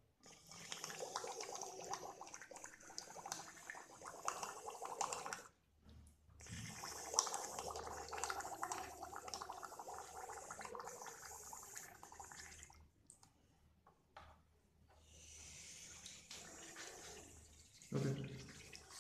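Air blown through a thin plastic tube bubbling and gurgling in water inside a plastic jar, in three long stretches with short breaks between. The air pushes the water out of the jar, so the model submarine rises.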